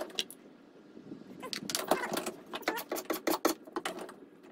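Small wooden blocks clacking and knocking against each other and the workbench as they are handled: a quick, uneven run of wooden knocks starting about a second and a half in.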